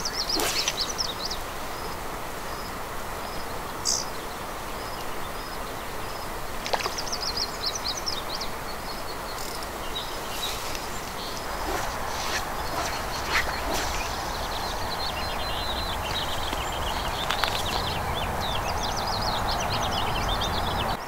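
Small birds chirping and trilling in repeated high phrases over a steady outdoor hiss, with a few brief faint clicks.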